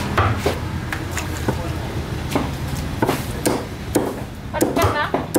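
Heavy cleaver chopping a trevally into pieces on a wooden chopping block. It makes a run of sharp chops, about one every half second, a little irregular.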